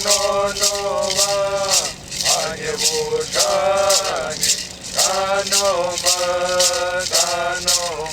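A voice singing a traditional song in long, gliding held notes, accompanied by a hand rattle shaken in a steady beat of about three shakes a second.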